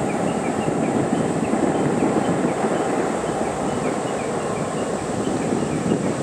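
Steady rush of flowing stream water, with faint short high chirps repeating a few times a second over it.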